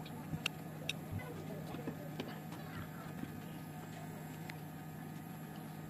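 Scattered light clicks and taps of a phone motherboard and tape being handled, over a steady low hum.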